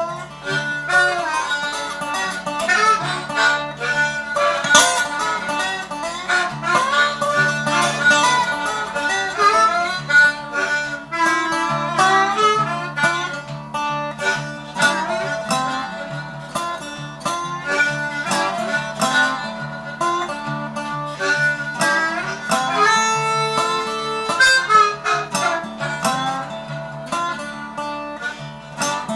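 Blues harmonica solo over a slide resonator guitar played lap-style, the harmonica's notes bending and wavering above the guitar's plucked accompaniment.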